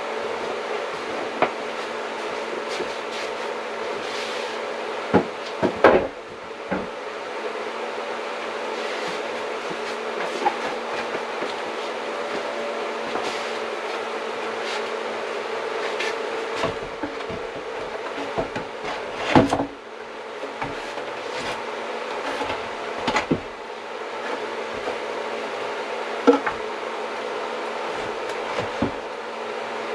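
Wooden window casing boards being handled and set up against the window opening for a test fit, with scattered knocks and clunks of wood, over a steady low hum.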